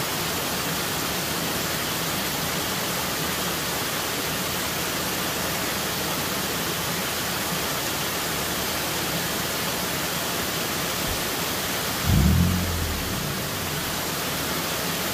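Creek water rushing steadily over small rock ledges in a shallow cascade. A brief low rumble breaks in about twelve seconds in.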